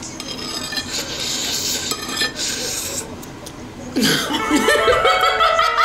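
Metal chopsticks clicking and scraping on a ceramic plate, with breathy laughter. About four seconds in, background music with plucked guitar starts and becomes the loudest sound.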